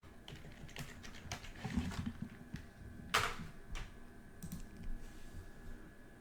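Computer keyboard typing and clicking in irregular short strokes, with one louder click about three seconds in.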